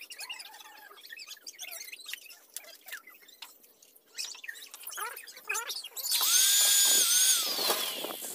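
A handheld electric power tool runs for about a second and a half near the end, with a steady high whine that dips once in pitch and then slides down as the motor spins down. Before it, scattered light knocks and tapping on wood.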